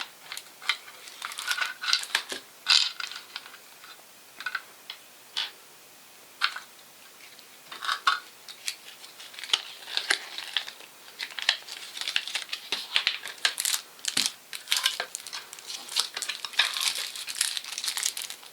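Plastic packaging crinkling and rustling, with irregular sharp clicks and taps, as a speedcube's box is opened and its contents unpacked by hand; the handling gets busier about halfway through.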